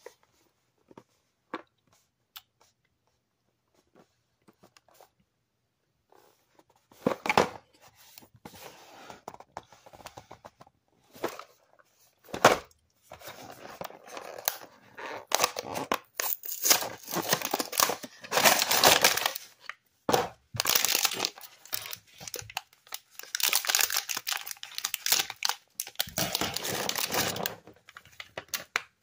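Warheads Cubes candy packaging being torn open and crinkled by hand: a few light taps at first, then repeated ripping and crinkling that grows louder and longer, as the chewy candy is emptied out.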